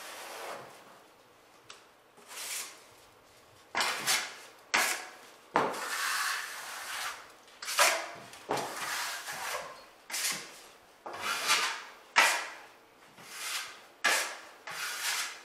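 Taping knife scraping down a drywall joint in repeated strokes, pressed hard to squeeze excess joint compound out from under the paper tape while leaving the bevel filled. After a quieter few seconds come about a dozen sharp scraping strokes, roughly one a second.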